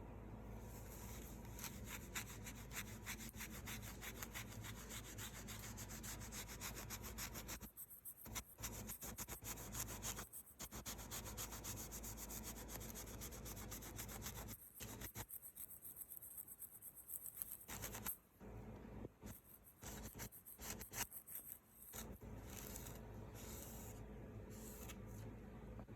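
Rapid back-and-forth rubbing on a wooden cutting board, many quick strokes a second, breaking up into shorter, separate runs of strokes in the second half.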